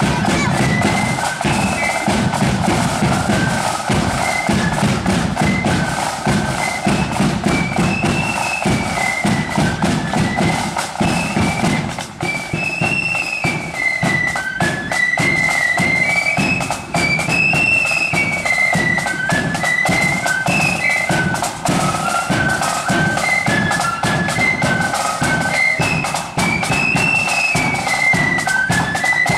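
Marching flute band playing a tune: flutes in unison carry a high melody over regular bass and snare drum beats.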